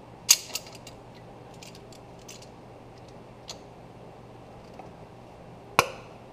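Hand tools clinking and clanking against metal while a seized exhaust manifold stud is worked out of a Ford 351 Windsor cylinder head: a sharp metallic clank just after the start and another, ringing briefly, near the end, with lighter clicks and ticks between.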